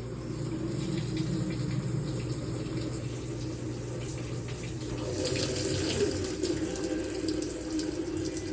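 Washing machine filling: water rushing through the newly fitted inlet valve into the drum, starting with a click. A low hum beneath it stops about five seconds in, and the rush of water turns brighter.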